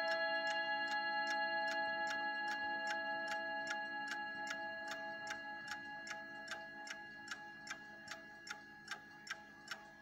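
Howard Miller mantel clock's brass chime rods ringing out and dying away over the first half, while the movement's floating-balance escapement ticks quickly and evenly, a few ticks each second.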